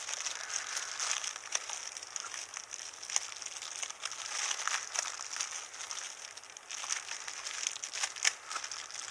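Packaging being handled during an unboxing: continuous rustling and crinkling with irregular small crackles and clicks.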